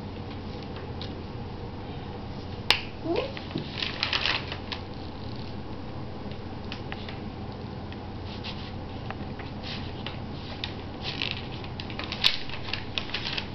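Paper and newspaper rustling with light taps and dabs of a paintbrush, including two sharp clicks a few seconds in and near the end, over a steady low hum. A short rising squeak sounds about three seconds in.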